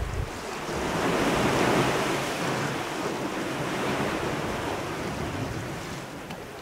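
Sea surf washing against a rocky shore, a surge building about a second in and then slowly easing, with wind in the background.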